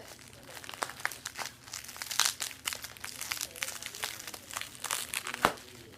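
Packaging crinkling and rustling in irregular crackles as a package is opened by hand, with one sharp snap about five and a half seconds in.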